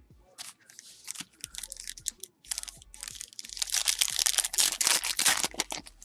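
Foil wrapper of a 2018 Diamond Kings baseball card pack being torn open and crinkled by hand: a few light rustles and clicks at first, then loud crinkling and tearing from about three seconds in until near the end.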